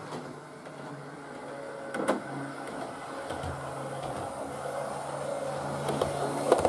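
Motor of a model railway parcels railcar on analogue DC control, humming steadily as the unit runs slowly, a comforting, almost dieselish drone that grows louder as it approaches. A couple of sharp clicks come about two seconds in and near the end.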